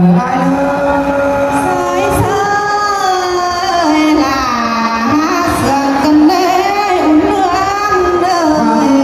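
Traditional Thai (Tai) ethnic folk singing, a housewarming song: one voice sings long held notes that bend slowly up and down.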